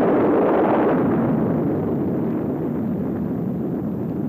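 Atomic bomb explosion on an old film soundtrack: a loud, steady rumbling roar that slowly fades.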